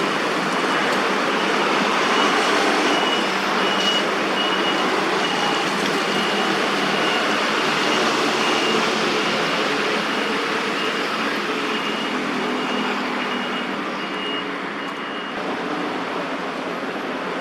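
Steady city road-traffic noise, with a short high beep repeating about twice a second through most of it.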